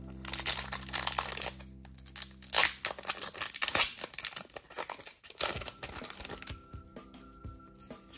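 Foil Pokémon Paldea Evolved booster pack being torn open by hand: crinkling and ripping in a run of irregular bursts for about six seconds, loudest midway, then quieter rustling as the cards come out.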